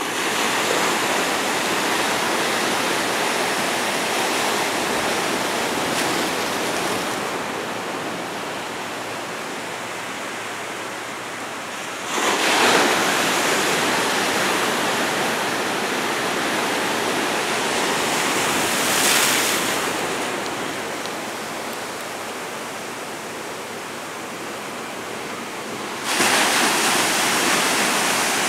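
Pacific Ocean surf: waves breaking and white water rushing in against jetty rocks. It is a steady rush of water that surges louder three times, about twelve seconds in, around nineteen seconds, and near the end.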